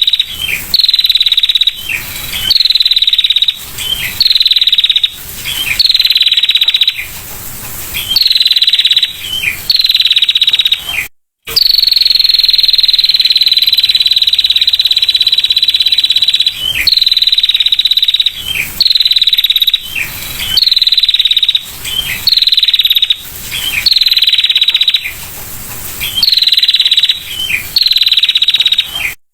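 Female prinia (prenjak) giving its fast, high-pitched ticking trill ('ngetir'), repeated in bouts of about a second with short breaks, and one long unbroken trill of several seconds in the middle. The sound cuts out for a moment about eleven seconds in.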